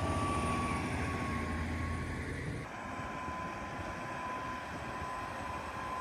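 Heavy truck's diesel engine running as it pulls a tracked excavator on a lowboy trailer: a steady low rumble with a thin high whine over it. The sound changes abruptly and drops slightly in level about two and a half seconds in.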